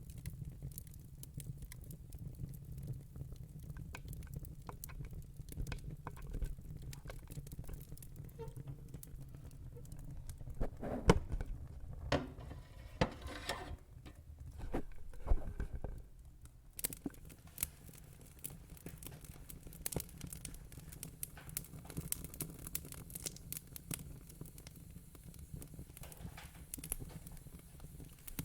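Fire crackling: a steady run of small snaps and pops over a low rumble, with a cluster of louder pops around the middle and a faint hiss in the second half.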